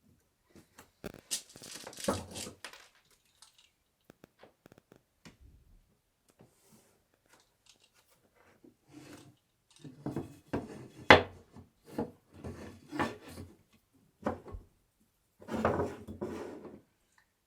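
Wooden bed parts and tools being handled during assembly: scattered knocks, scrapes and clicks, with a run of knocks in the second half and one sharp, loud knock among them.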